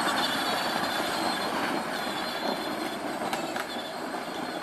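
Power Wheels battery ride-on toy car driving off at speed, its electric motors running with a faint high whine and its plastic wheels rattling over the ground, slowly fading as it moves away. It runs faster than stock after a screw was undone to raise its speed.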